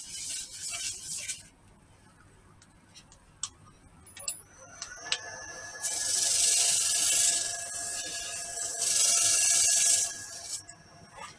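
A paintbrush hisses against an olive-wood bowl on a wood lathe. About four seconds in the lathe motor starts with a steady high whine, and the brush hisses louder on the spinning bowl for about four seconds as finish is brushed on.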